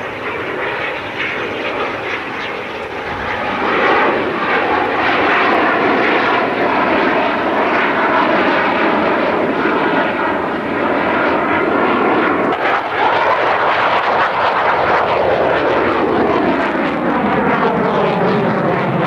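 F-16 fighter jet's engine, a Pratt & Whitney F100 turbofan, heard as loud jet noise as the aircraft flies by. It grows louder about four seconds in and stays loud, with sweeping shifts in pitch as the jet moves past.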